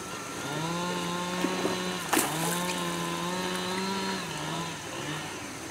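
A small engine runs at a steady pitch in two stretches, broken by a sharp click about two seconds in, then dies away.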